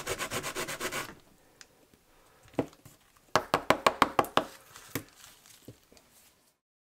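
Herkat 2717 rubber track eraser rubbed in quick back-and-forth strokes over the rail of a Märklin C-track section, stopping about a second in. After a short pause comes a quick run of about eight light knocks, as the track piece is tapped to shake off the eraser crumbs.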